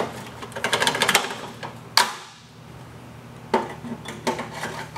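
Metal guide rails of a rolling shutter being slid onto the housing's end caps: a run of light metallic clattering and knocks, with one sharp knock about two seconds in and a few more near the end.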